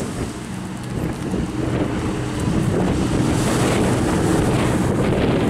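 Avro Lancaster's four Rolls-Royce Merlin piston engines droning in flight, growing louder after about the first second, with heavy wind noise on the microphone.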